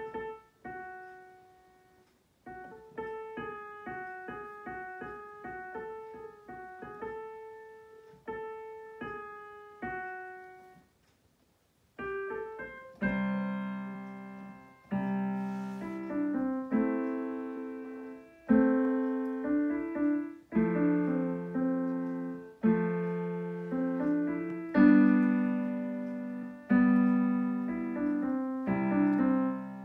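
Roland digital piano played solo: a light melody of separate notes in the upper-middle register. About eleven seconds in it pauses briefly, then comes back louder and fuller, with low chords held under the melody.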